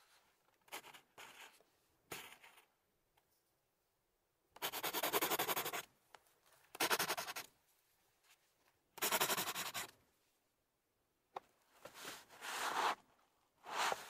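Pencil drawing on paper: bursts of rapid scratchy strokes, a few faint short ones at first, then several stronger ones each about a second long, with a sharp tap near the end.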